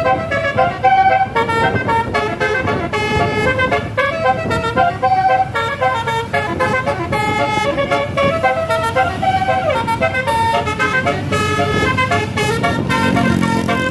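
Bus telolet horns of the 'basuri' melodic type playing a run of tunes, pitched notes changing several times a second with more than one horn sounding at once. Underneath is a low rumble of bus engines and traffic.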